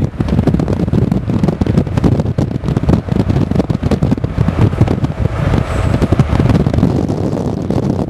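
Wind buffeting the microphone inside a moving car, a loud, ragged rumble with car road noise underneath.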